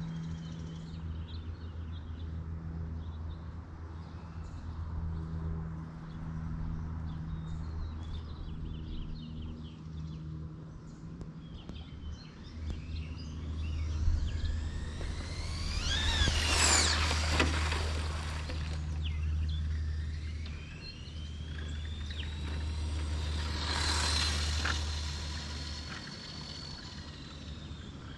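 A car accelerates hard past with a rising high whine, loudest about 16–17 seconds in, and a second pass follows about seven seconds later, its whine climbing and then holding. A steady low engine drone runs underneath, and birds chirp in the first half.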